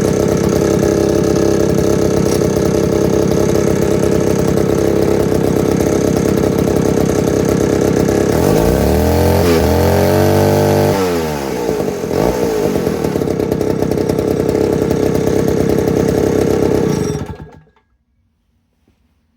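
Chainsaw engine running steadily. About nine seconds in, its pitch drops and climbs back over a couple of seconds, then it runs on and cuts off abruptly near the end.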